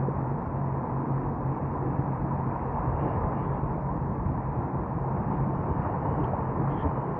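Jet ski engine running at a steady speed, a constant low hum under an even rushing noise.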